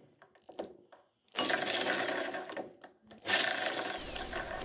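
An electric drill spins a starter-motor armature whose pinion meshes with the flywheel ring gear, cranking a Fiat 126p's 650 cc air-cooled two-cylinder engine in two whirring bursts with a short pause between. The engine does not yet catch.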